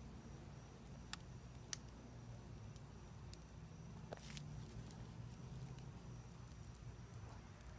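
Glowing embers of a burnt-down fire ticking, with a few sharp crackles and pops scattered through, over a faint low rumble.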